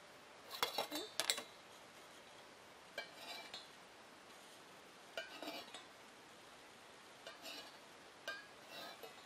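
Steel marking tools, a divider and a pointed scriber, scratching and clicking against a stainless steel bowl while its centre is marked out. The sound comes in about five short bursts of scraping and clicking, the strongest about a second in.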